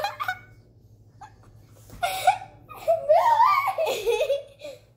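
Young girls laughing and giggling in bursts: a short burst at the start, another about two seconds in, and a longer stretch of laughter from about three seconds in until near the end.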